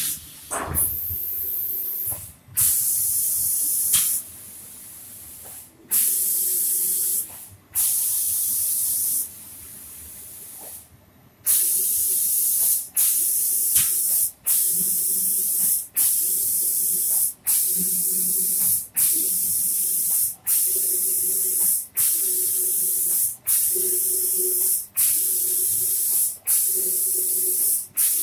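Automatic spray painting machine's spray gun hissing as it sprays finish coat onto furniture parts, switching on and off. In the first part it runs in a few long, uneven bursts, then in short, regular bursts about once a second.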